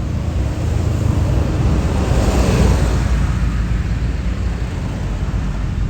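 Tour bus engine running with a low rumble, and a rushing noise that swells about two seconds in and then fades.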